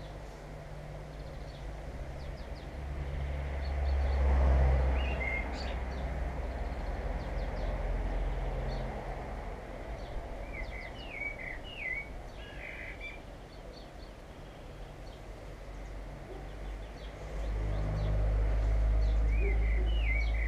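Daytime outdoor ambience: small birds chirping now and then over the low engine rumble of passing traffic. The rumble swells about four seconds in and again near the end.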